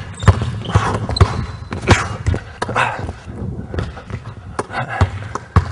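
Basketball dribbled hard on a hardwood gym floor: a quick, uneven run of sharp bounces during a crossover move, with short harsh sounds mixed in between the bounces.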